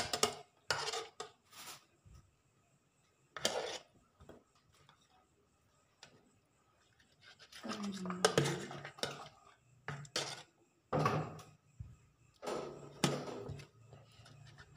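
Dishes and cutlery clinking and scraping in short, irregular bursts, with quiet gaps between.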